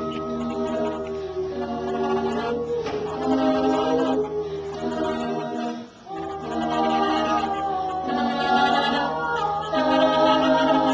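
A cappella vocal group singing in harmony without instruments, the voices moving over a held low bass note, with a short break about six seconds in.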